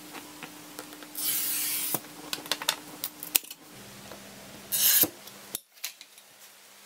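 A glass cutter's wheel scoring sheet glass along a steel straightedge: a scratchy hiss under a second long about a second in, and a shorter one near the end, with light clicks and taps of glass and tools between.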